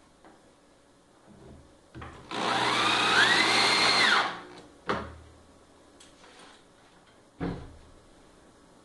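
Corded electric drill driving a screw into plywood. The motor runs for about two seconds with a whine that rises, holds and then drops as it is let off. A few single sharp knocks come before and after.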